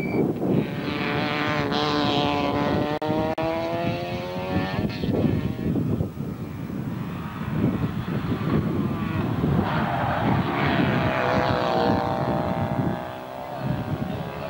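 Race car engine revving hard as it climbs a hill climb course, its pitch sliding down and back up twice as the car brakes into a hairpin and accelerates away.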